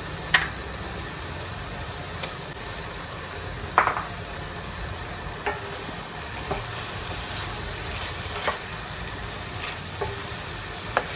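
Raw chicken pieces going into a steel kadai of frying onions and turned with a wooden spatula: a soft sizzle with scattered knocks and clacks of meat and spatula against the pan, the loudest about four seconds in, over a steady low hum.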